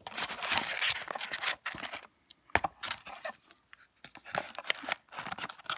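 Rustling and crinkling of paper and plastic packaging as small beauty products are handled, in two spells, with a sharp light knock about halfway through.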